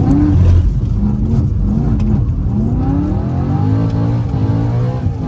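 BMW M3 engine revving under hard acceleration, its pitch climbing several times and levelling off between climbs.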